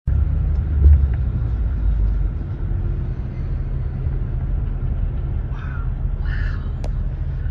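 Steady low rumble at a highway pile-up where wrecked tractor-trailers are burning, broken by a few sharp pops.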